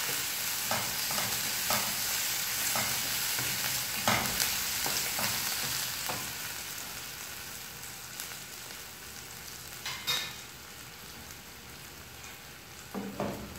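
Sliced onions and green chillies frying in oil in a non-stick kadai, sizzling as a wooden spatula stirs and scrapes them, with irregular knocks of the spatula against the pan. The sizzle grows quieter about halfway through.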